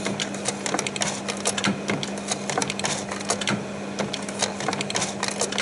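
Kodak Carousel S-AV2000 slide projector stepping forwards through its slide tray. The slide-change mechanism and tray indexing make a quick, irregular mechanical clicking and clatter over the projector's steady hum.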